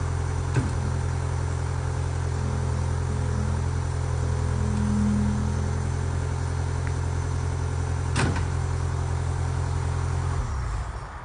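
Skid steer engine running steadily at idle, with a couple of sharp knocks, then shutting off near the end as it is turned off.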